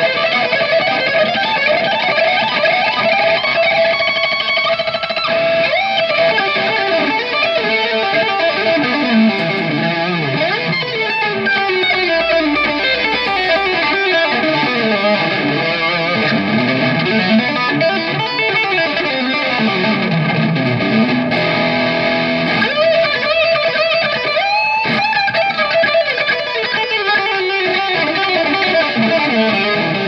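Ibanez electric guitar played through a Nux MG-30 multi-effects unit: a steady lead solo of melodic lines with fast runs and pitch bends.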